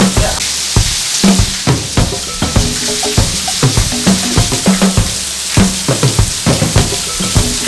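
Funky background music with a drum beat and short bass notes, over the steady rushing hiss of a waterfall.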